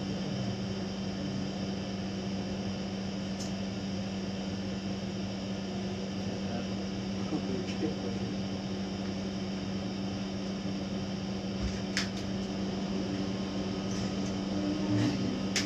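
A steady mechanical hum fills the room without change, with a couple of sharp clicks near the end.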